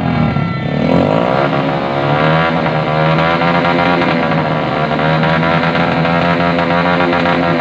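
Motorcycle fitted with a Daeng Sai 4 aftermarket exhaust being revved, the engine note climbing in the first second, then rising and falling with the throttle.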